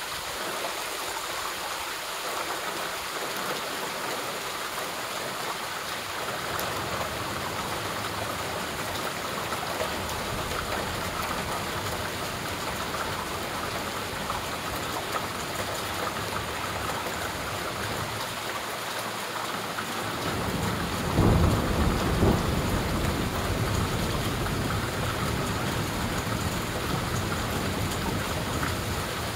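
Steady rainfall hissing, with a low rumble of thunder swelling about two-thirds of the way in, loudest briefly, then rolling on more softly.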